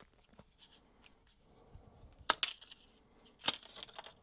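Hard plastic handling noises from a black DJI camera extension rod being turned and worked in the hands: light rubbing and small clicks, with two sharp clicks a little over a second apart near the middle and end.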